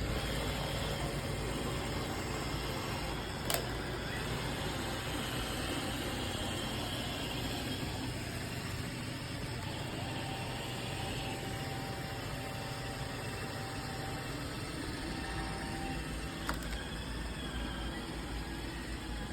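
Roomba robot vacuum running with a steady motor and brush whir, broken by two sharp knocks: one about three and a half seconds in, one near the end.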